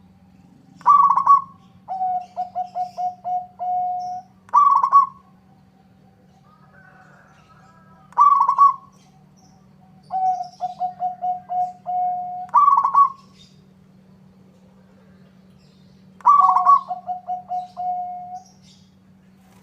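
Zebra dove (perkutut) singing: loud, higher coo notes alternating with runs of about seven quick, evenly spaced lower notes, the phrase repeated three times. A steady low hum runs underneath.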